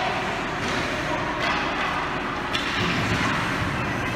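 Youth ice hockey game at the rink: steady background rink noise, broken about half a second, a second and a half and two and a half seconds in by short sharp sounds of play on the ice.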